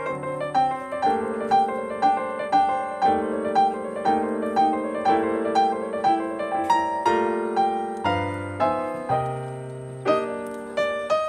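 Background piano music: a steady run of notes about two a second over lower held chords.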